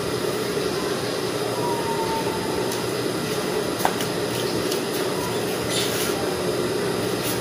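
Steady electric motor hum, with a couple of light clicks about four seconds in and a brief rustle of cloth being handled near the end.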